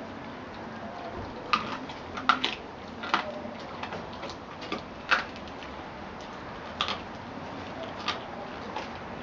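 A collie chewing a raw rabbit, its teeth crunching through bone and meat in irregular sharp crunches, the loudest about two and five seconds in.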